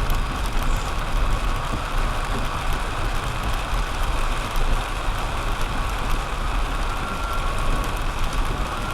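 Steady, loud rushing of water, an even hiss with a deep rumble underneath.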